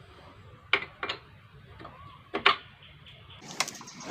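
Sharp metallic clicks and clinks of a 19 mm open-end spanner against a scooter's axle bolt as it is fitted and worked, spaced apart, with a quicker cluster near the end.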